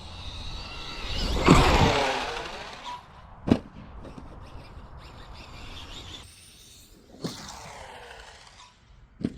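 Brushless electric motor and drivetrain of a Traxxas Maxx Slash RC truck whining at speed. The whine swells loudest about one and a half seconds in, with pitch lines sweeping as the truck passes, and a weaker pass comes near the end. Sharp knocks, about three of them, punctuate the runs, such as the truck landing or hitting the ground.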